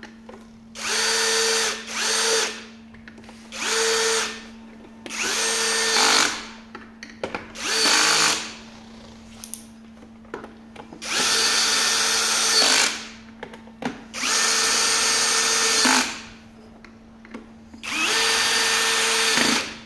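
Cordless drill-driver driving screws into a hoverboard's plastic shell, in about eight short bursts of motor whine. Each burst spins up and winds down, and the last few run longer.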